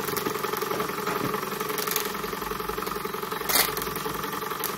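Model horizontal steam mill engine running steadily and smoothly under steam, its flywheel turning a small dynamo. A single short sharp sound cuts through about three and a half seconds in.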